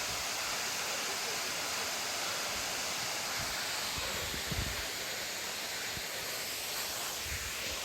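Waterfall's falling water, a steady even rushing noise, with a brief low bump about halfway through.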